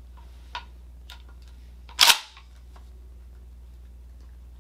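Metal-and-polymer clicks of a Kel-Tec KS7 12-gauge pump shotgun being handled: a couple of light clicks, then a loud sharp clack about two seconds in.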